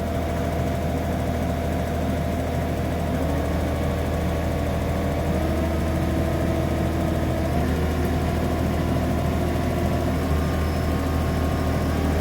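Dredge engine and hydraulic pump running steadily, a strong low hum with higher tones that shift in pitch a few times as hydraulic flow and pressure are raised to free a sand-packed cam lock coupling that has not yet popped.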